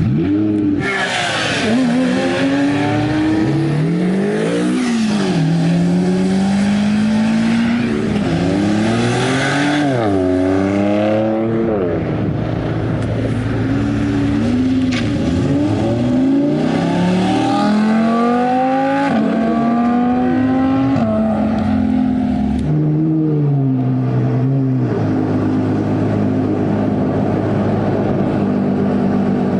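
Ferrari 812 Superfast's naturally aspirated V12, straight-piped with a Novitec exhaust, accelerating hard: revs climb and drop sharply at each upshift several times over. It then settles to a steadier cruise in the last few seconds.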